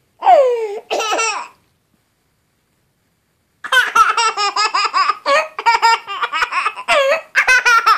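A baby laughing. Two short squeals with falling pitch come near the start, then after a pause of about two seconds a long run of rapid, breathy belly laughs.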